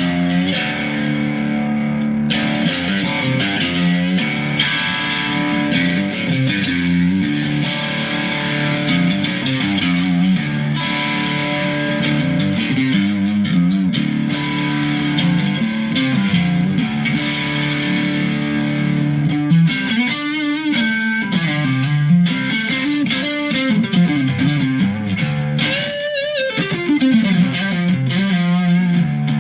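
Mexican-made Fender Stratocaster electric guitar, freshly set up and tuned to drop D, played continuously. Near the end some notes glide down in pitch.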